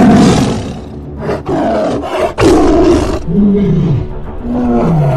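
Tiger roar sound effect: a loud roar at the start, more roars following, and two lower calls that fall in pitch near the end, over background music.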